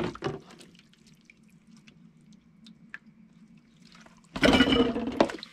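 Dishes being washed by hand in a kitchen sink: a few faint clinks, then water splashing from the tap onto the dishes for about a second near the end.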